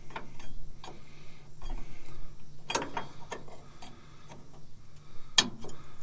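Irregular metal clicks and knocks as a metal parking brake cable bracket is handled and set into place, with two sharper clacks about three seconds in and near the end. A low steady hum runs underneath.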